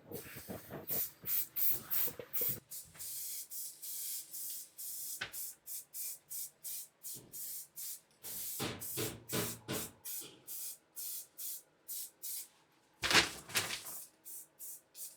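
A run of short hissing strokes, several a second and irregular, with a louder cluster near the end, from enamel paint being applied to the engine.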